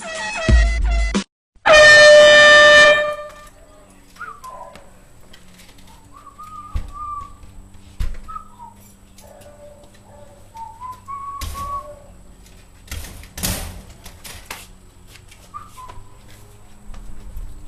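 Air horn giving one loud, blaring blast of about a second and a half, starting about two seconds in, right after a snatch of music cuts off. Afterwards faint short whistling chirps and a few brief rushes of noise.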